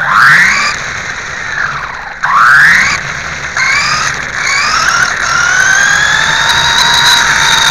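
Radio-controlled dirt late model race cars' motors whining. The pitch sweeps sharply up twice in the first three seconds as the cars accelerate, then climbs slowly and holds as they run down the straight.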